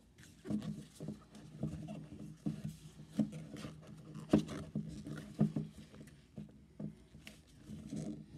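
Silicone mold being pulled and peeled off a cured resin jar, slick with rubbing alcohol: irregular soft rubbing and knocking, several times a second, loudest a little past the middle.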